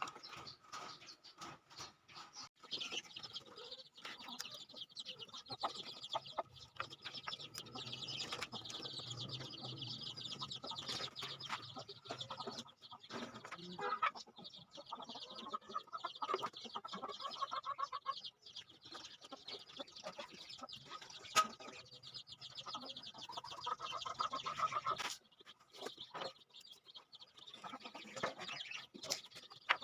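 Chickens clucking, among scattered clicks and knocks.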